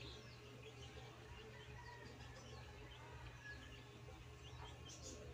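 Faint chirping of small birds in the background: many short, scattered calls over a low steady hum.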